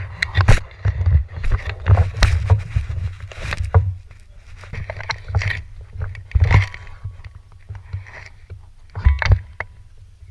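Steady low rumble with many scattered sharp clicks and knocks, the movement and gear noise of an airsoft player carrying the camera.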